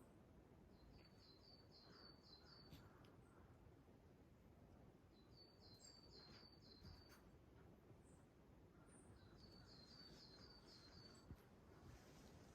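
A small songbird singing faintly, three short phrases about four seconds apart, each a quick run of about six repeated high notes, over a faint steady hiss of outdoor background noise.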